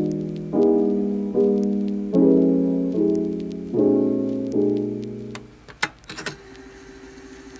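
Background music: soft piano chords struck about every 0.8 s, each dying away, until the music stops about five seconds in, followed by a few clicks.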